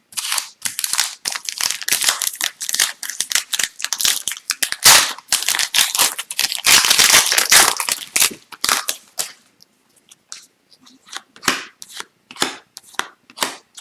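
Upper Deck Extended Series hockey card pack wrappers being torn open and crumpled: dense crackling for about nine seconds, then scattered soft clicks as the cards are handled.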